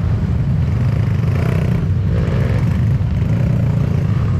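Dirt bike engine running steadily at low revs, with faint voices in the background about halfway through.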